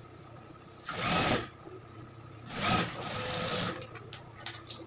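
Industrial lockstitch sewing machine running in two short bursts, the first about half a second long and the second just over a second, as it stitches a narrow fabric strip. A few light clicks follow near the end.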